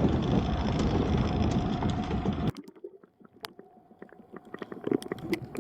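Wind rumbling on the microphone over sea noise on a small boat, cutting off abruptly about two and a half seconds in. A quieter stretch follows with a few faint clicks and taps.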